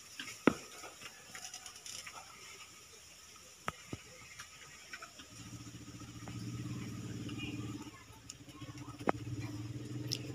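Scattered sharp clicks and taps, the loudest about half a second in. From about five seconds in, a low steady engine hum sets in, briefly dropping away near eight seconds before resuming.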